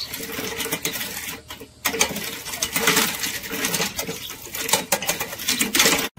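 Motorcycle roller chain rattling and clicking over its steel sprockets as a homemade braiding machine is hand-cranked, with a short pause about one and a half seconds in.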